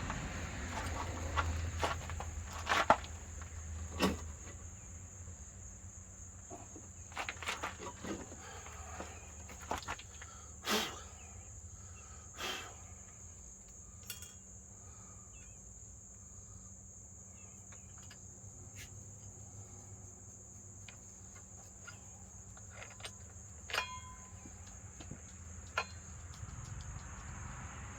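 Steady high-pitched drone of insects, with scattered short clicks and knocks; the trimmer's engine is not running. A low hum fades out in the first few seconds.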